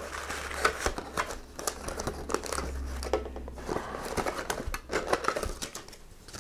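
Clear plastic wrapping crinkling and a cardboard packing insert rustling as they are handled and pulled out of a camping cooking pot, with irregular crackles and clicks.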